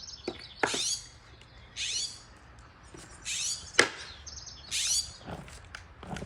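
Blue jay giving harsh, repeated scolding calls, about one every second and a half, as it mobs a cat. A single sharp click comes about four seconds in.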